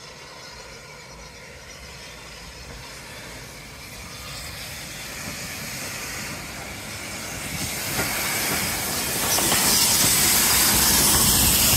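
Small steam locomotive approaching and running past close by, growing steadily louder. From about eight seconds in, a loud hiss of steam takes over as the engine draws alongside.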